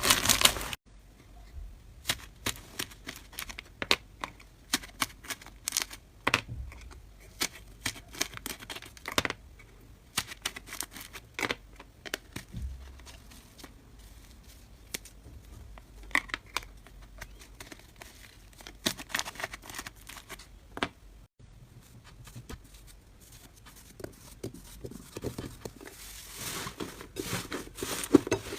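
Slime being squeezed and pulled by hand, making irregular sticky crackles and sharp pops. The crackling is dense and loud in the first second, then turns into sparse separate clicks, and grows denser again over the last few seconds.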